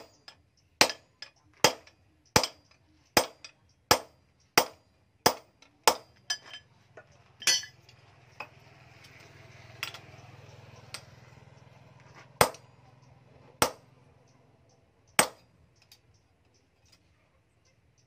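Hand hammer striking a steel punch held in tongs against a steel axe head, stamping a decorative dotted pattern. There are sharp metallic clinks about every three quarters of a second for roughly six seconds, a pause, then three more spaced strikes.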